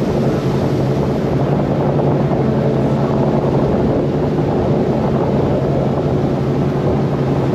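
Motorboat engine running steadily at cruising speed, a constant low drone under the rush of wind and water passing the hull.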